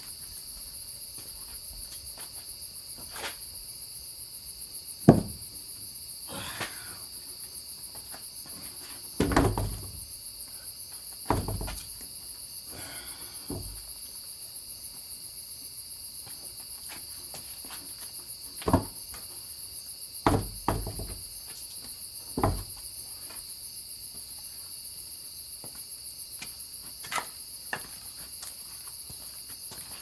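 Crickets chirping steadily, with about six heavy wooden knocks as a large squared timber is handled and set down across wooden sawhorses. The loudest knock comes about five seconds in, and the others are spread over the next twenty seconds.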